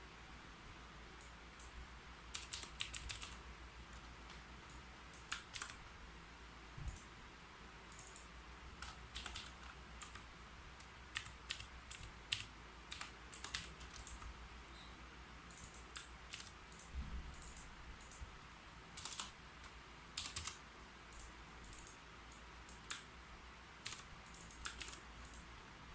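Typing on a keyboard: irregular runs of quick keystrokes separated by short pauses.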